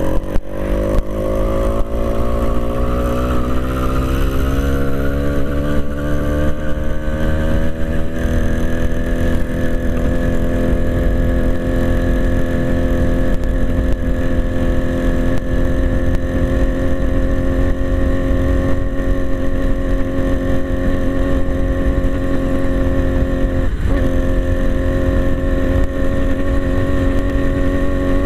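80cc Zeda two-stroke bicycle engine at full throttle. It rises in pitch as the bike accelerates over the first ten seconds or so, then holds a steady high drone at top speed, with a brief dip near the end. It is running on a new high-performance carburettor with a pod filter that has not yet been rejetted, and it tops out around 28 mph.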